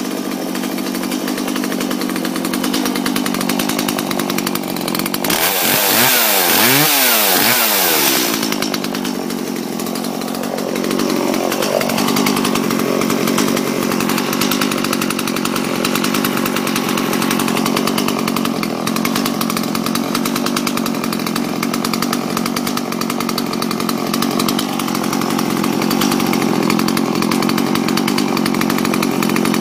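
Stihl MS 170 two-stroke chainsaw running at idle after a cold start. It is revved up and back down several times between about five and eight seconds in, then settles back to a steady idle.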